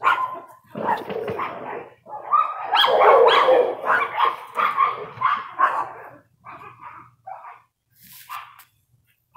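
Dog barking in a rapid series, densest and loudest over the first six seconds, then a few shorter, softer barks near the end.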